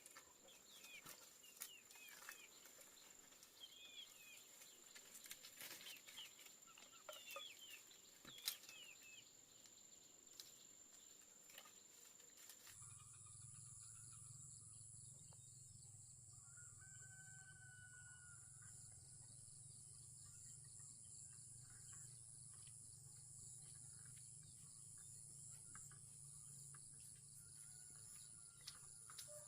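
Faint rural ambience: small birds chirping over and over in the first half. About halfway through, the background changes suddenly to a steady low hum with a constant high-pitched tone and a few faint whistled notes.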